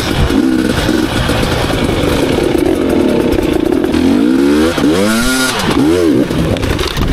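Two-stroke enduro dirt bike engine running under throttle at a steady pitch, then revved up and down in several quick blips past the middle as it climbs over rock.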